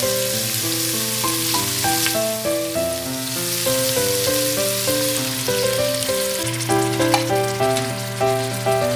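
Shallots, tomato and garlic sizzling as they sauté in hot oil in a pot, under background music with a melody of short notes changing several times a second.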